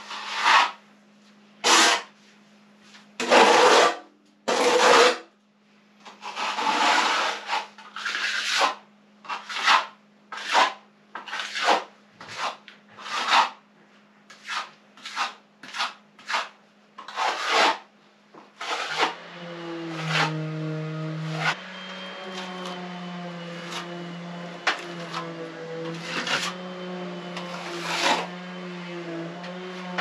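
Plastering trowel scraping and spreading hemp-lime plaster across a wall in repeated rasping strokes, about one a second and irregular, thinning out after about two-thirds of the way through. A steady low drone runs underneath.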